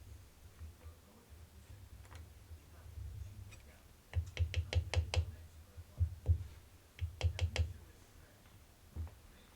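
Runs of sharp knocks and taps, several quick strokes at a time, from handling and seating a steel gib bar in a milling-machine vise. The first four seconds are quiet, then a run of strikes comes about four seconds in, two more around six seconds, another run around seven, and a single knock near the end.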